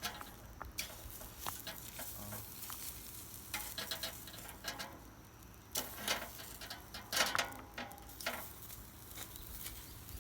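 Meat sizzling on a charcoal grill, with irregular crackles and sharp pops from the fat and coals; a couple of louder pops come around six and seven seconds in.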